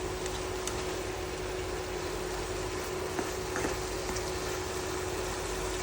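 Sliced chicken with garlic and ginger cooking in a pan, a steady sizzle and bubble as it cooks in its own released juices. A steady hum runs underneath, with a few light clicks.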